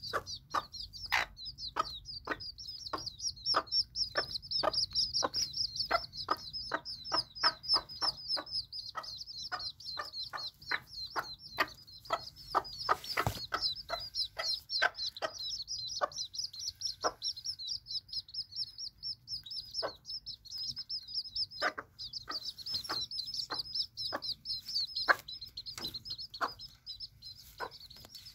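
A mother hen clucking over her chicks in short, low, repeated clucks, two or three a second at first and sparser in the second half, while the chicks peep continuously in high chirps. One brief knock about halfway through.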